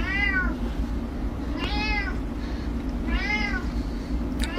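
Domestic cat meowing repeatedly: four short meows about a second and a half apart, each rising then falling in pitch.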